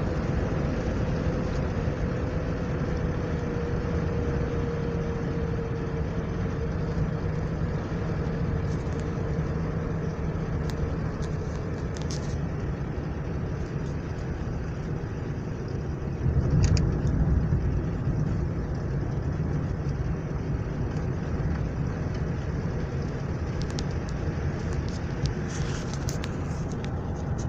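A car driving, with steady road and engine noise. A faint engine tone sinks slightly in pitch over the first few seconds. About 16 seconds in there is a louder low rush, and a few light ticks come near the end.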